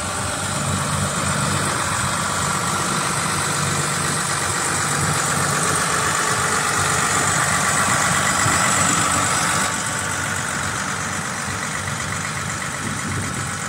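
New Holland TM140 tractor's six-cylinder diesel engine idling steadily, a little quieter from about ten seconds in.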